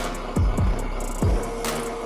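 Electronic background music with a beat: deep kick-drum thumps, snare hits and ticking hi-hats, with a held tone in the second half.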